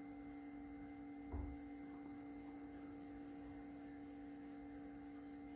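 Faint steady electrical hum of room tone, with one soft low bump about a second and a half in.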